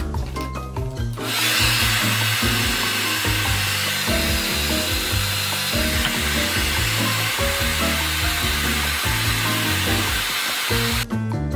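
Handheld hair dryer running with a steady rushing hiss that starts about a second in and cuts off near the end, over background music.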